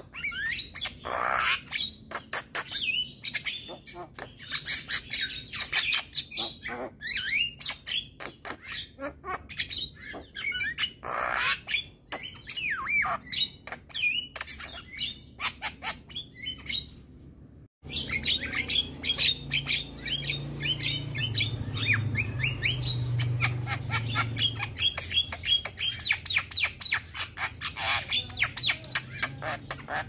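Male Javan myna (jalak kebo) singing a fast, varied string of chirps, whistles and harsh squawks. The sound cuts out abruptly for a moment about two-thirds of the way through, then the song carries on over a low hum.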